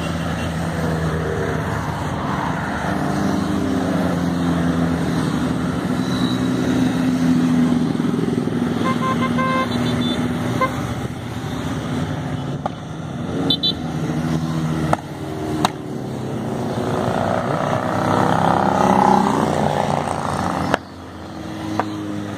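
A procession of motorcycles riding past one after another at low speed, engines running, the noise swelling as each bike goes by. A few short horn toots come about halfway through.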